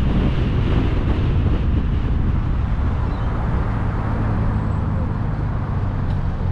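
Car driving: a steady low rumble of road and wind noise on the microphone, easing a little about halfway through.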